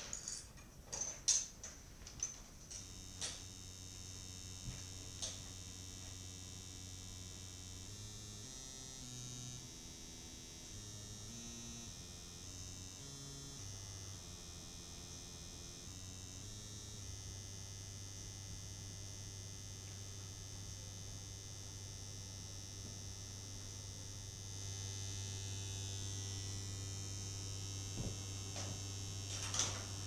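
Electronic noise drone: a steady low hum with a high whine above it. Its low tones step up and down in pitch between about 8 and 17 seconds in. A few sharp clicks come near the start and again near the end.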